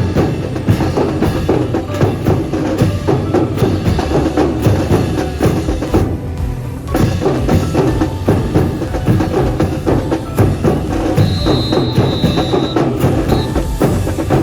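Student brass band playing with drums, a steady percussion beat driving the music.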